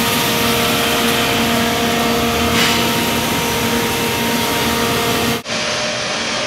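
CNC router spindle milling a block: a steady hiss of cutting over a held spindle whine, brightening briefly about two and a half seconds in. It cuts off abruptly near the end, where a slightly quieter steady machine noise takes over.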